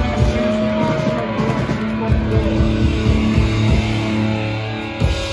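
Live hardcore punk band playing loud, with distorted electric guitar through amplifiers and held, ringing notes.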